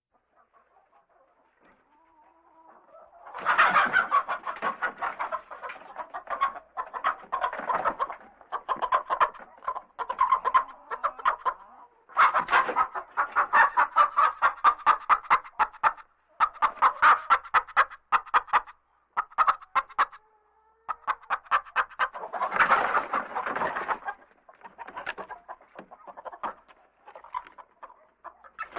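Chickens in a coop clucking and cackling excitedly, in repeated bursts of rapid calls. The calls start faint and grow loud about three seconds in, with brief lulls between bursts.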